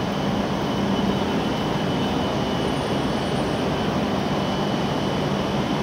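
E7 series Shinkansen standing at the platform with its doors open, its onboard equipment giving a steady whirring hum with a thin high whine over it.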